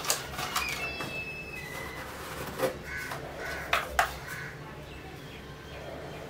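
Birds calling in short, thin, steady-pitched notes, with a few sharp clicks and taps as a spoon and plastic containers are handled; the clicks are the loudest sounds.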